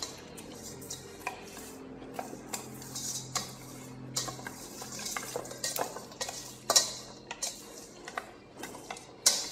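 Chopsticks stirring and tossing chicken pieces in a stainless steel pot to work the marinade through, with irregular clicks and knocks of the sticks against the pot. The loudest knock comes about two-thirds of the way through.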